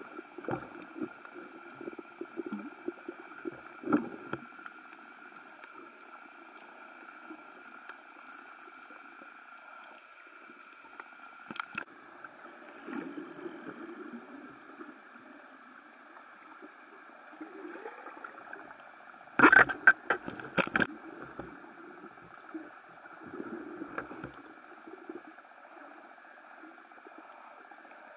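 Muffled underwater sound from a camera in a waterproof housing: water gurgling and sloshing against it over a steady whine. A few sharp knocks come through, the loudest two close together about two-thirds of the way in.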